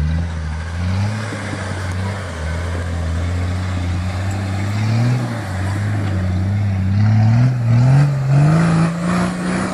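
Nissan Patrol 4x4's engine under load on a steep climb, its revs rising and falling in repeated throttle blips, with several short climbs in pitch toward the end.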